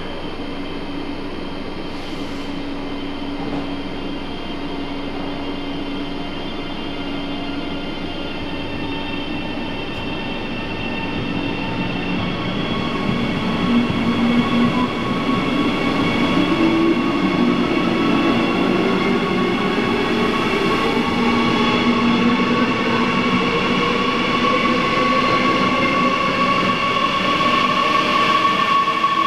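Double-deck push-pull train pulling out of an underground station, with a DB Class 147 electric locomotive pushing at the rear. A steady running hum grows louder from about halfway. As the locomotive comes past it accelerates, and its motor whine rises slowly in pitch.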